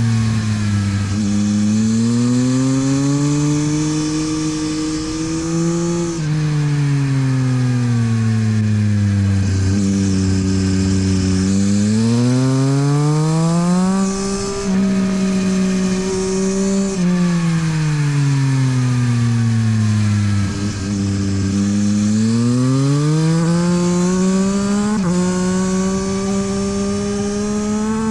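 Yamaha MT-09 SP's 890 cc three-cylinder engine through a LeoVince exhaust, at full track pace. The pitch climbs hard under acceleration, breaks briefly at the gear changes, then drops away under braking and downshifts. This repeats several times as the bike laps the circuit.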